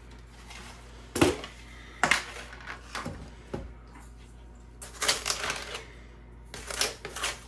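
Plastic sugar canister being opened, with several sharp clicks and knocks of its lid, then a measuring cup scooping and scraping through granulated sugar in two gritty bursts in the second half.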